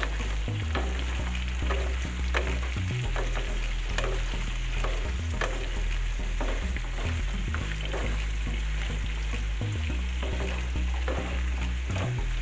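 Cubed pumpkin sizzling in hot olive oil in a frying pan, stirred with a wooden spoon that clicks and scrapes against the pan again and again.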